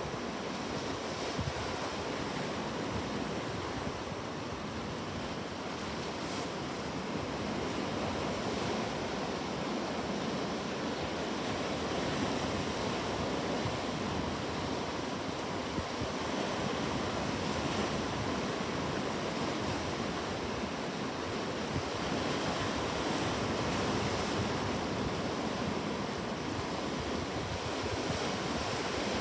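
Sea waves washing continuously onto a shore, a steady surf with gentle swells in loudness, with some wind noise.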